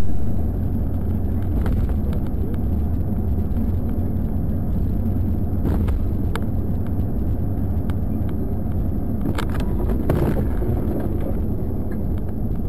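Steady road and engine rumble inside a car's cabin at highway speed, with a few sharp ticks and knocks scattered through, the loudest about ten seconds in.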